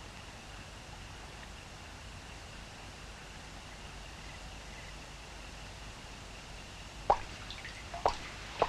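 A low, steady hush, then three single water drops plopping in the last two seconds as rain begins to fall.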